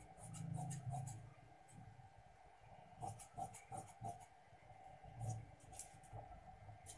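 Large tailor's scissors cutting through fabric in several short runs of snips, faint.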